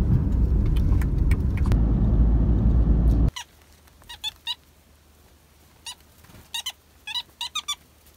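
Car driving on a paved road, heard from inside the cabin as a steady low rumble, which cuts off suddenly about three seconds in. After that it is quiet apart from a few groups of short, high bird chirps.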